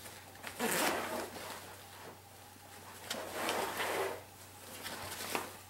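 A zipper being drawn along a nylon tactical backpack and the fabric rustling as a pouch is opened and handled, in two drawn-out rasping swells with a few small clicks of buckles and pulls.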